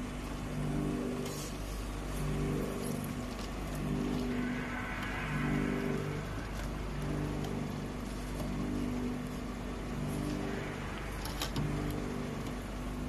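Machinery hum with low tones that pulse on and off in a repeating pattern. A few sharp clatters come from the metal skimmer and plastic crates, and there is a hiss from about four to six seconds in.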